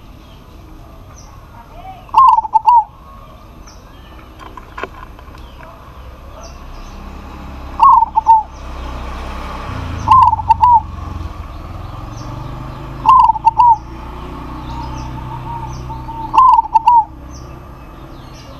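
Zebra dove (perkutut) cooing: five short phrases of quick, falling coo notes, each about half a second long and a few seconds apart.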